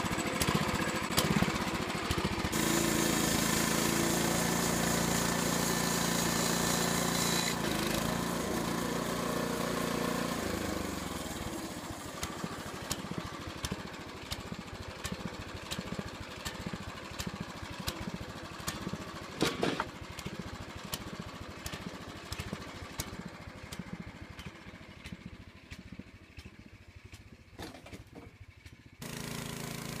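Small gasoline engine on a portable band sawmill being pull-started: it catches about two seconds in and runs fast and steady. About ten seconds in it slows down to a low idle with a regular beat that gradually gets quieter.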